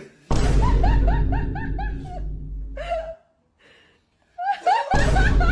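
A person laughing hard in quick repeated "ha" bursts, in two runs with a short break between, over background music with a steady low bass.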